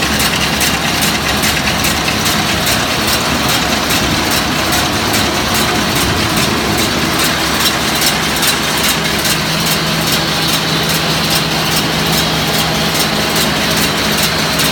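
Tractor engine running steadily, driving a John Deere 569 round baler, with the baler's mechanism clicking evenly about three or four times a second.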